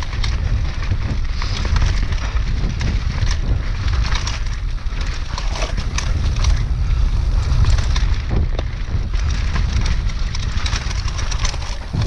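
Mountain bike riding fast down a wet dirt singletrack: wind buffets the microphone with a heavy low rumble, over a constant hiss of tyres on dirt and frequent clicks and rattles from the bike over the rough ground.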